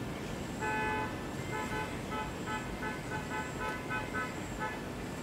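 A horn sounds one short held note about half a second in, then a quick run of short toots at about four a second, over a steady background hum.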